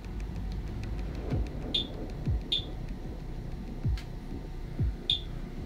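A CDV-700 Geiger counter's speaker giving a few sporadic, irregularly spaced clicks over a steady low hum while a K40 CO2 laser fires beside its probe. The clicks are background counts only, with no rise that would mean X-rays from the laser tube.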